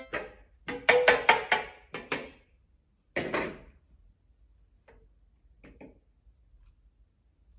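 A glass mixing bowl being picked up and handled: several sharp clinks and knocks in quick succession, a short rustling scrape a little after three seconds, then a few faint ticks.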